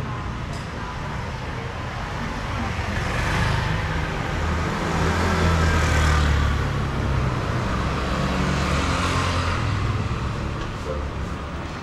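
Street traffic, with several vehicles passing close by one after another over a steady rumble and tyre hiss. The loudest pass comes about halfway through.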